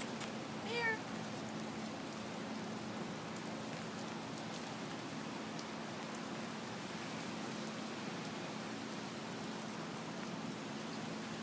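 A dog's single short high whine about a second in, over a steady hiss of light rain on gravel.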